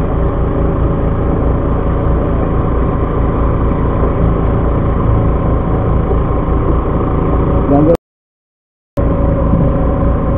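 Fishing boat's engine running steadily, a constant hum with a low, even pulsing underneath. The sound drops out completely for about a second near the end, then the same hum resumes.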